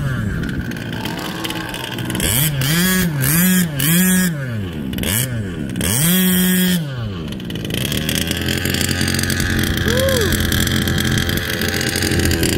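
Gas two-stroke engine of a 1/5-scale Scorpion SS short course truck, its gearbox stuck in second gear. It revs in a run of quick blips, pitch rising and falling, then holds one longer rev. From about eight seconds in it settles to a steady idle.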